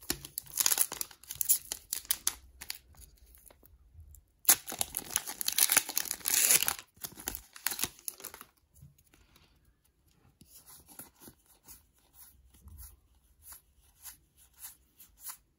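Foil wrapper of a Pokémon card booster pack being torn open and crinkled, in two loud bouts a couple of seconds apart. Later come softer, quick repeated flicks as the cards are slid past one another.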